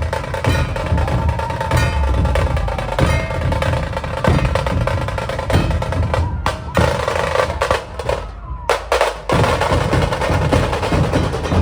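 Maharashtra dhol-tasha drumming: deep dhol strokes under rapid tasha snare rolls, loud and dense, over a held pitched tone. The sound briefly thins out twice past the middle.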